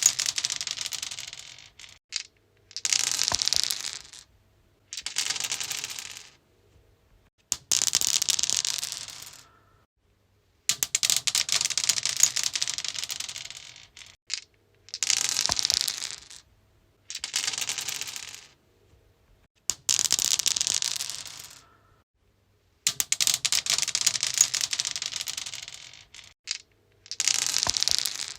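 Dice rolled again and again across a stone surface. Each throw is a clatter of rapid clicks that fades out as the dice settle, with short silences between about ten throws.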